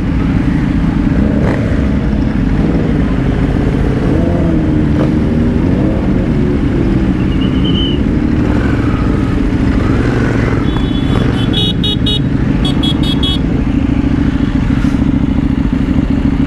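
Several superbikes riding slowly in a group, their engines running steadily with revs rising and falling in the middle. About eleven seconds in comes a rapid string of high beeps, twice in quick succession.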